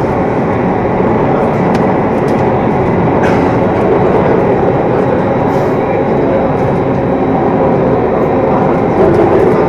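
Singapore MRT train running between stations, heard from inside the car: a steady, loud rumble of wheels on rail and traction motors, growing a little louder near the end.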